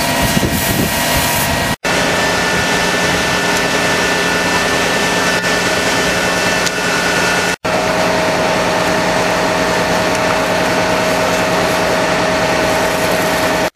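Engine, most likely a fire engine's, running steadily with a constant droning hum. It drops out abruptly twice where the recording is cut.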